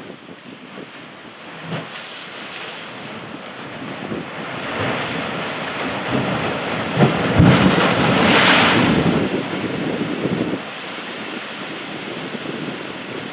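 Ocean wave surging up a narrow channel in the shore rocks: the water rush builds to a loud hissing surge about halfway through, with a few low thuds as it strikes the rock, then drains back and eases off.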